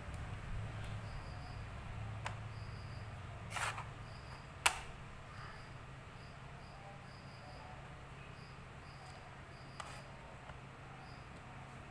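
Xiangqi pieces set down on the wooden board: a soft knock about three and a half seconds in, a sharp click a second later, and a faint click near ten seconds. Faint short high chirps repeat in the background over a low hum.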